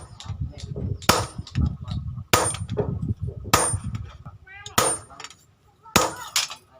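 Hammer striking steel on an anvil: five heavy blows about every 1.2 seconds, each ringing, with lighter taps between them.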